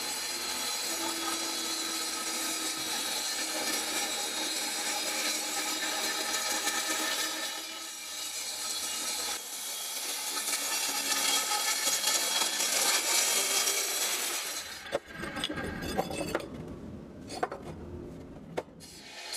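Angle grinder with a cutting disc running and cutting into a heat-resistant fire brick: a steady whine with gritty grinding. It stops about 15 seconds in, followed by a few sharp clicks and knocks as the cut brick is handled.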